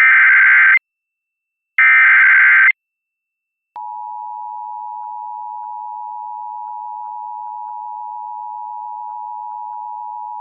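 Emergency Alert System broadcast: the last two of the three harsh, buzzy SAME data bursts, each under a second long and about a second apart, then from about four seconds in the steady two-tone EAS attention signal. This is the signal that opens an emergency alert, here a flash flood warning.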